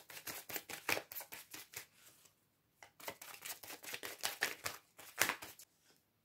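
Tarot cards being shuffled by hand: a fast run of soft card clicks, about seven a second, in two bouts with a short pause about two seconds in.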